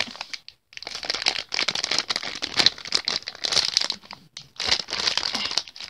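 Shiny foil blind-bag toy packet crinkling as it is opened and handled. The crackling rustles are irregular, with brief pauses about half a second in and again after four seconds.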